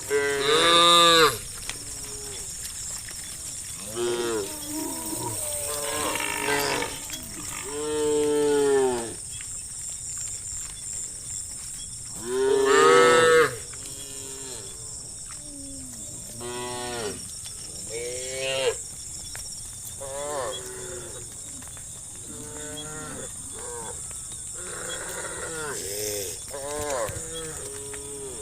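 A herd of cattle mooing: many separate moos from several animals, some overlapping, with the loudest calls about a second in, around eight seconds and around thirteen seconds. A steady high-pitched hiss runs underneath.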